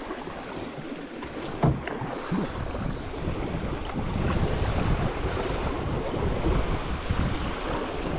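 River water rushing around a raft, with wind buffeting the microphone. There is a sharp knock just under two seconds in and a lighter one soon after.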